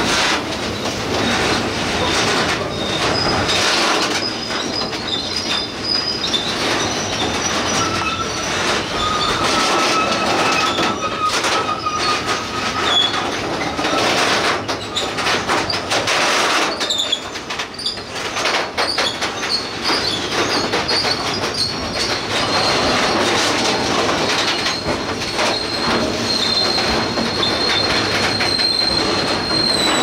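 Freight train wagons rolling past on steel rails. The wheels squeal in thin, high, wavering tones, with scattered sharp clacks from the wheels over the track.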